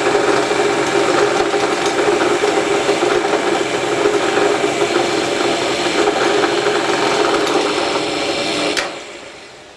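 Pillar drill running, its bit slowly boring a 7 mm hole into a walnut block: a steady motor hum with cutting noise. It stops sharply with a click near the end.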